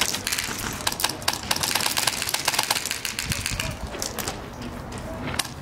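Airsoft rifle firing in rapid full-auto bursts, a fast run of sharp clicks, easing off midway and picking up again near the end.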